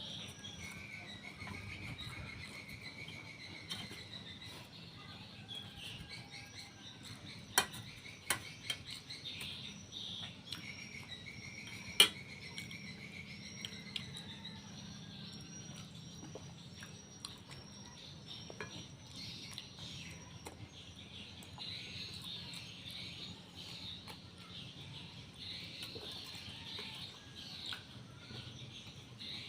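Insects and birds chirping in a steady chorus of short, high repeated calls, with a few sharp clicks around eight seconds in and a louder one near twelve seconds.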